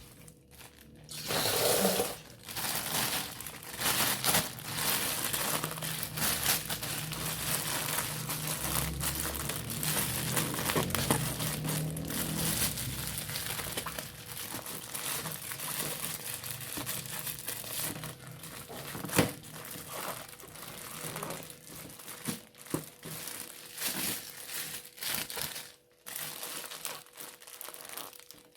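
Irregular crinkling and rustling of dry material being handled, with scattered sharper crackles and clicks.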